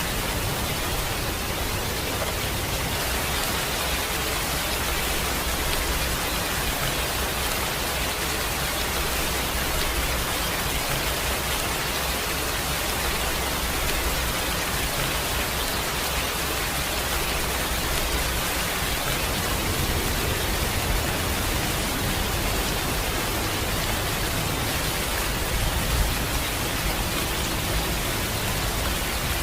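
Steady rain falling, an even hiss of drops with no let-up, with a low rumble beneath it that eases off about two-thirds of the way through.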